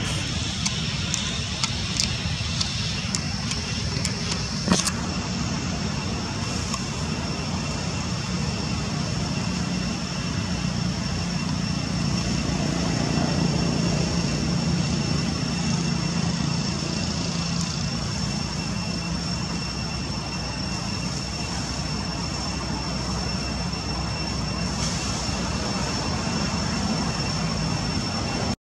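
Steady outdoor background noise: a low, even rumble with two thin, steady high tones above it, and a sharp click about five seconds in.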